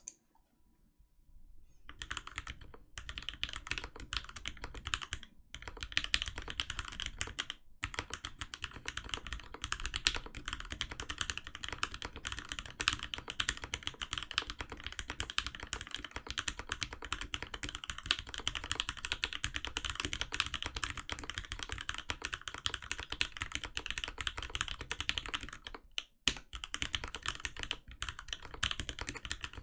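Steady fast typing on a Switch Couture Alice mechanical keyboard with an acrylic plate in a stacked acrylic case, JWK Pinokos switches lubed with 205g0 and ePBT keycaps. It starts about two seconds in, with a few short pauses.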